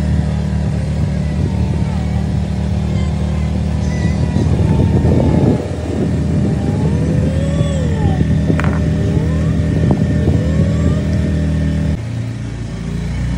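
A small boat's motor running steadily at cruising speed, with a deep, even drone. About four to six seconds in, leaves and branches brush along the boat, and near the end the motor's note drops lower as it slows.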